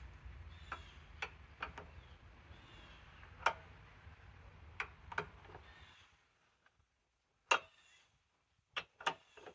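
Irregular sharp clicks and light knocks of metal tools and parts being handled, over a low hum that cuts out about six seconds in. The loudest click comes near the end.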